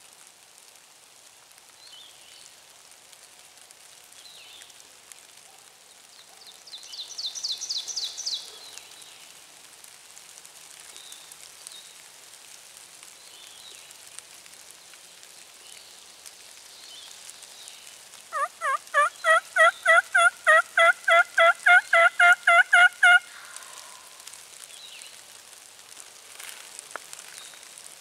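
Turkey yelping: a run of about twenty evenly spaced yelps, roughly four a second for five seconds, starting about two-thirds of the way in. Earlier there is a brief, rapid, high-pitched trill of a small bird.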